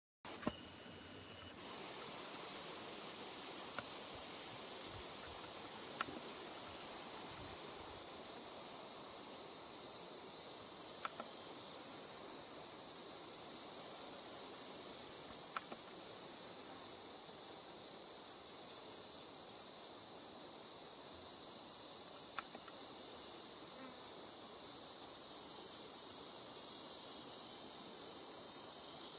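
Summer insects singing: a high-pitched song pulsing about three times a second over a steadier, lower continuous buzz.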